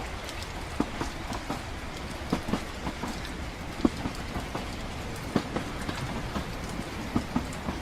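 Train carriage rumbling steadily as it runs, mixed with rain, and irregular sharp clicks and knocks every second or so.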